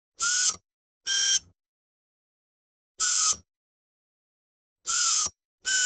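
Electric screwdriver motor run in five short spurts, each a brief whine of about half a second with a gap of silence between.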